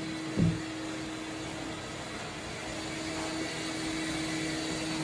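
A single dull thump about half a second in as a bi-fold window panel is swung by hand, over a steady background hum.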